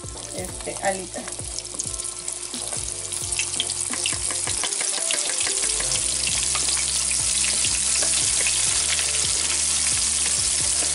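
Flour-dredged chicken wings frying in hot oil in a skillet. The sizzling, full of small pops, grows louder over the first few seconds as more wings go into the oil, then holds steady.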